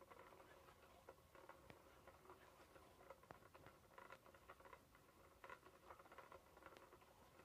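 SmartyKat Hot Pursuit cat toy running: its motorized wand sweeps around under the fabric cover, making faint scratchy rustling and light clicks.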